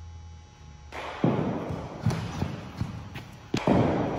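Baseball fielding practice on indoor turf: a series of about six sharp knocks and thumps of the ball bouncing and being fielded, starting about a second in, over a steady low hum.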